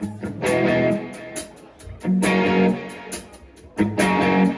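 Live country band playing a song's intro on guitars: a full chord hits about every second and a half to two seconds and rings out, over steady high ticks that keep time.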